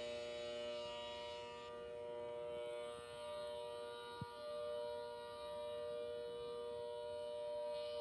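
ACA Hurricane 130 rotating tornado siren holding a steady wail at full pitch, its loudness swelling and dipping as the horn turns.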